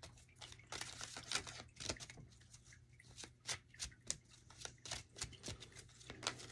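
A deck of tarot cards being shuffled by hand, cards slid and dropped from one hand onto the pack. It makes quick, irregular soft slaps and flicks, several a second.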